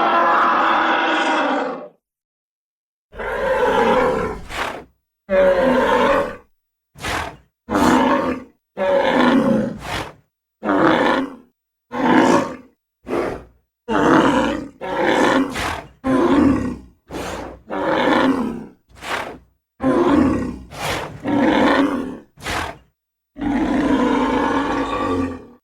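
Kosmoceratops dinosaur sound effects: a string of about twenty separate roars, grunts and growls, some short and some long, with dead silence between them. A long roar runs for the first two seconds, and another long one comes near the end.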